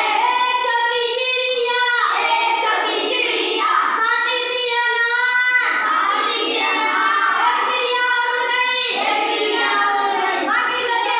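Children singing a song, with high voices holding one note after another.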